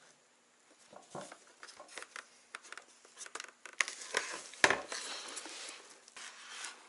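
Hands handling a snowmobile helmet: scattered small clicks, taps and rustles, with one louder knock a little past the middle.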